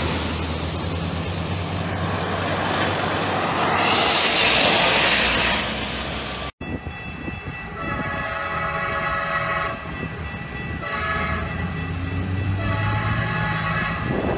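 A rushing noise that swells about four seconds in, then after a sudden cut a train's multi-note horn sounding several blasts as the train approaches a level crossing, with a steady high tone under the horn.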